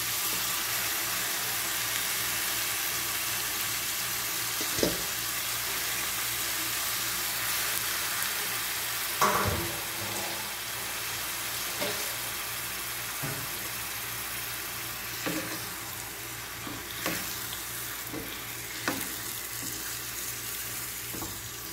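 Squid frying in a pan with tomato, onion and chili: a steady sizzle, broken by about eight short knocks of a wooden spatula stirring in the pan. The loudest knock comes about nine seconds in.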